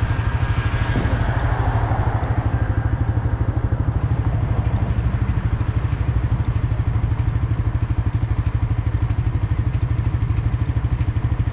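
Suzuki GSX-R sport motorcycle engine idling with a steady, even pulse.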